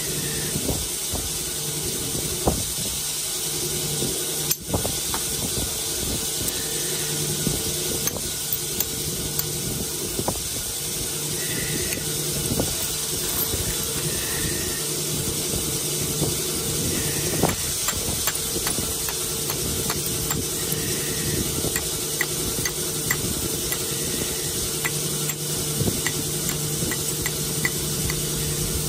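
A rock saw running steadily: a constant hiss over a low hum. A few sharp clicks of stone being knapped sound now and then.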